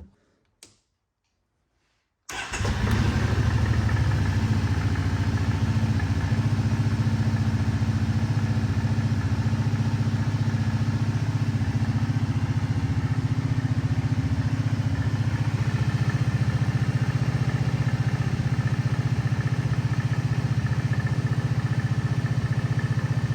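A 2011 Kawasaki Brute Force 750's V-twin engine starts abruptly about two seconds in and then idles steadily. It is running on a newly fitted idle air control valve, the cure for its rough idle: definitely better, though the owner still hears some weirdness in it.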